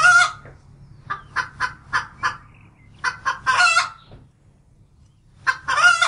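Hen cackling: runs of short clucks, each ending in a longer, louder squawk, three times over.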